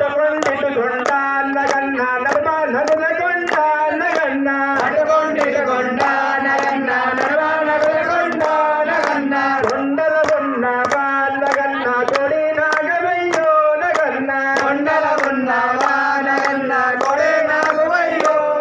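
Hindu devotional chanting sung in a melodic line by a priest into a microphone. A steady beat of sharp clicks, about two a second, runs under it.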